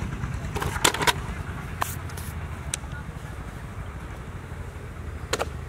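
Several sharp clicks and knocks of hard plastic toys being handled and dropped into a plastic basket, the loudest cluster about a second in, over a steady low rumble.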